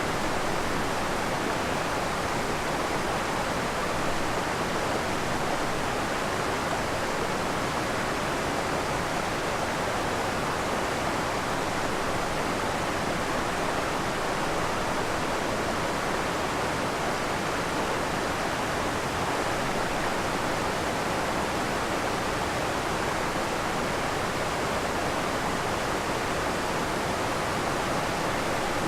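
Waterfall on a forest creek: water pouring and splashing steadily in an even, unbroken rush.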